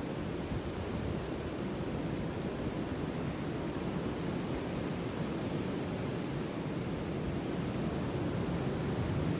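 Sea surf: a steady wash of breaking waves, swelling slightly near the end.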